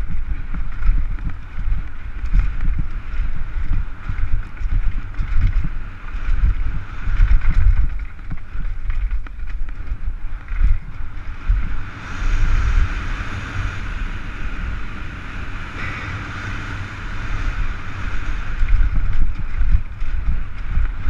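Downhill mountain bike ridden fast over a rough, dry, rooty dirt trail, heard from a helmet camera: wind buffeting the microphone over a constant rattle and rumble of the bike and tyres, with irregular jolts from bumps. About twelve seconds in, a brighter, hissier noise joins as the speed picks up.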